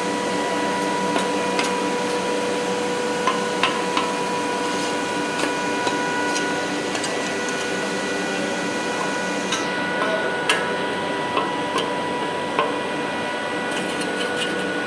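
Workshop machinery running with a steady whine, with scattered sharp metal clicks and taps throughout.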